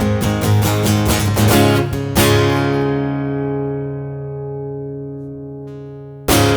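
Closing bars of a song on strummed guitar: even rhythmic strokes, then a final chord struck about two seconds in and left ringing, fading slowly. A short loud burst comes near the end.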